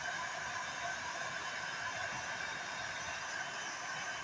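Hair dryer running steadily, a constant rushing hiss of blown air.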